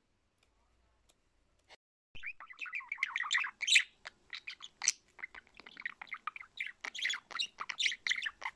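Budgerigar chattering and warbling close up: a rapid, unbroken stream of chirps and squawky notes that starts about two seconds in, after a few faint clicks.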